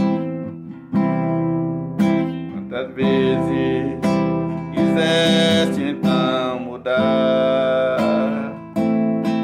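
Cutaway classical acoustic guitar strumming chords, about one strum a second, each chord ringing on. A man's singing voice joins over the guitar in the later part.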